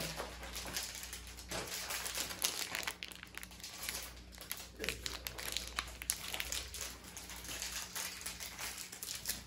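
Thin plastic wrappers of Trolli gummy lizard packets crinkling in irregular crackles as they are handled and pulled open.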